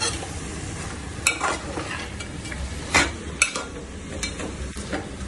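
Shredded cabbage sizzling in hot oil and masala in a steel pan as it is stirred, with a metal spoon clinking sharply against the pan a few times.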